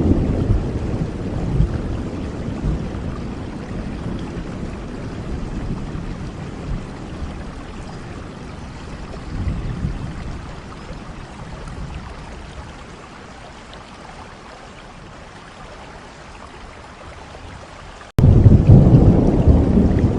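Steady rain with a long rolling thunder rumble that fades away over the first dozen seconds, swelling briefly once more midway. Near the end the sound drops out for an instant and cuts abruptly to a much louder low rumble.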